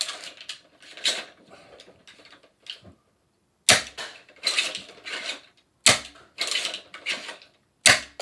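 3D-printed Nerf Caliburn pump-action spring blaster being worked: three sharp cracks at roughly two-second intervals, with the clicking clatter of the plastic pump action being racked between them.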